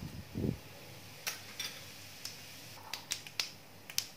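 Cumin seeds crackling in hot oil in a kadhai just after being tipped in from a spoon: scattered sharp pops, more of them in the second half, after a soft low thump at the start.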